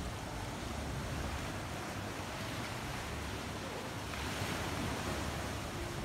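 Small sea waves washing onto the shore, with wind gusting across the microphone as a low rumble. A wave swells louder about four seconds in.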